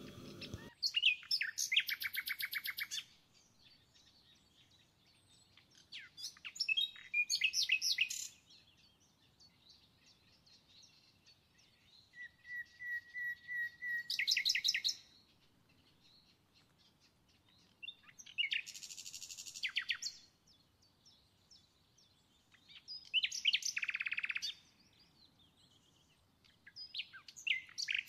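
A songbird singing in short phrases of rapid trills and chirps, six phrases spaced a few seconds apart, one of them a fast trill held on one pitch before jumping higher. No mixer motor is heard.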